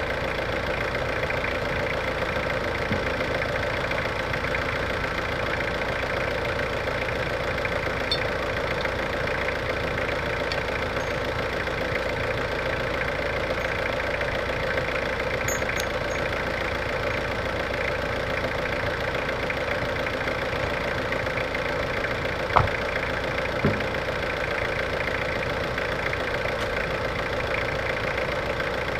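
A vehicle engine idling steadily, with a steady hum that holds throughout. Two short knocks come about three-quarters of the way through.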